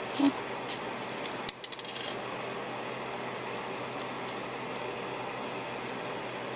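Small clear craft gems clicking and clinking against each other and the work surface as they are handled, a cluster of light clicks in the first two seconds, then only a steady low hum with an occasional faint tick.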